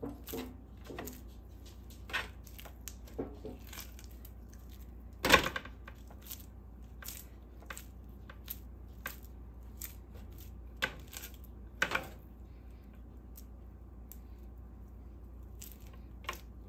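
Hands pressing and patting a sticky cream cheese mixture into a ball, making irregular soft sticky smacks and squelches. The loudest come about five seconds in and again near twelve seconds.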